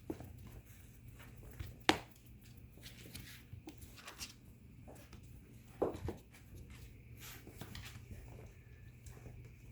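Puppies moving about on a hard floor: scattered light clicks and taps, with a sharper knock about two seconds in and a thump about six seconds in, over a low steady hum.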